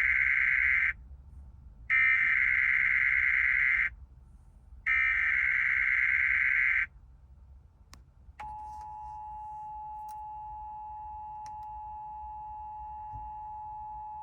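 Emergency Alert System test broadcast over radio. It opens with three two-second bursts of buzzing digital header data, each separated by a short gap. After a pause of about a second and a half, a single steady attention tone starts about eight seconds in and holds.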